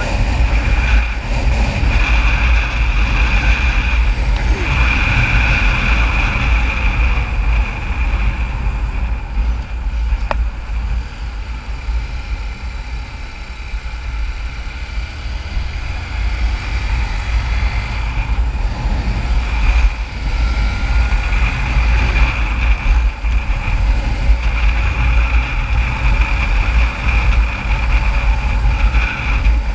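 Motorcycle riding at road speed on a highway: steady engine and road noise under heavy wind rush on the microphone, dipping a little in the middle.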